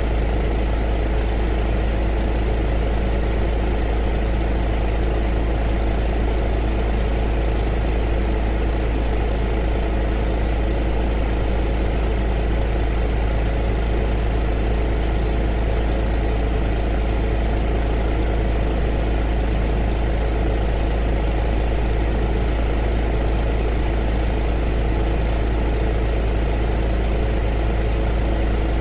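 Heater running steadily: a constant deep rumble with a steady hum and an even whooshing noise over it, unchanging throughout.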